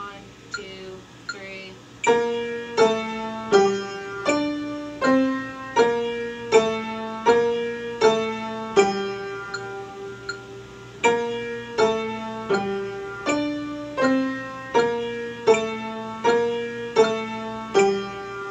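Upright piano playing a slow minor-key grand-staff melody, treble and bass notes together, one note per beat at quarter note = 80. The piano comes in about two seconds in, after a few bars of faint metronome clicks, and the last note is held near the end.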